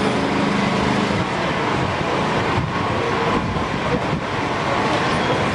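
Busy city street ambience: steady road traffic noise with the general bustle of a street.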